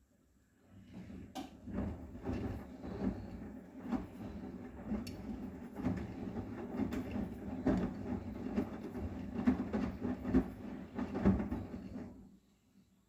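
Arçelik 9120M front-loading washing machine drum turning a wet load of duvet covers, with sloshing and irregular thuds as the laundry tumbles. It starts about a second in and stops near the end, as the drum pauses between turns.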